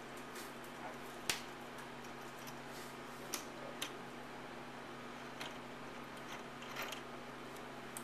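Scattered small clicks and taps of fingers turning metal thumb nuts down onto the spring-loaded mounting screws of a CPU water block, the sharpest click about a second in. A low steady hum runs underneath.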